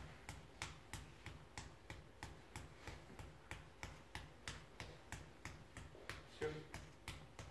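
Steady rhythmic tapping, about three light strikes a second, of a fist on a hand laid over a person's lower back: percussion over the kidney area as a visceral massage treatment.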